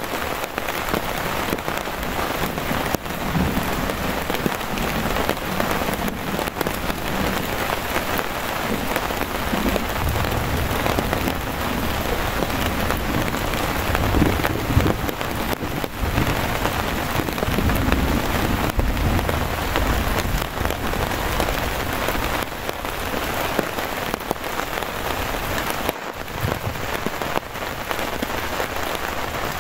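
Steady rain falling, with low rumbles of thunder swelling a few times in the middle.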